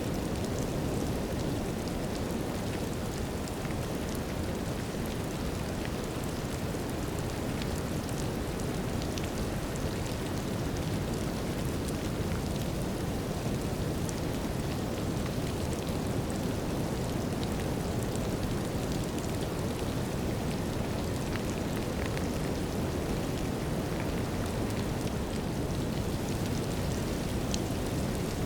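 Steady brown noise, an even low rushing hiss, layered with light drizzle heard as faint scattered drop ticks.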